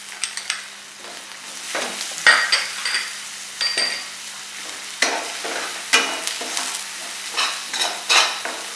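Chopped onion sizzling in hot oil in a stainless steel frying pan, with a steel ladle scraping and clinking against the pan as it is stirred. The scrapes come more often in the second half.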